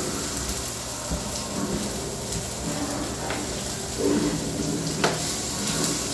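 Food frying and sizzling in a stainless steel pan on the stove, a steady hiss, with a cooking utensil knocking sharply against the pan twice in the second half.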